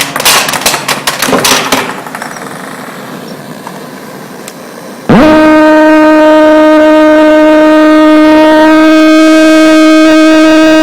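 Rapid knocking and clattering of small objects for about two seconds, then a quieter rolling hiss. About five seconds in, a theremin played through a speaker comes on with a quick upward swoop and holds one loud, steady pitched tone.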